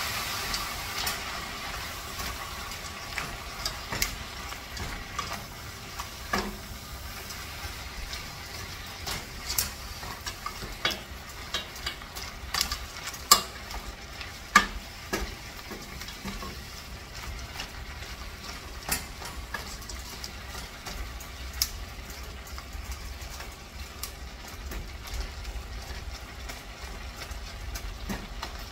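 Food sizzling in a stainless steel saucepan while a silicone spatula stirs it, with scattered clicks and scrapes of the spatula against the pot. The sizzle hiss fades over the first couple of seconds, and a low steady hum runs underneath.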